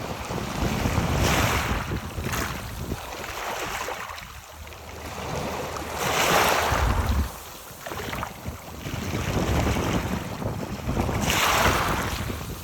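Waves washing in over rocks and pulling back, with the stones clicking as the water runs through them; three big surges come about five seconds apart. Wind buffets the microphone with a low rumble.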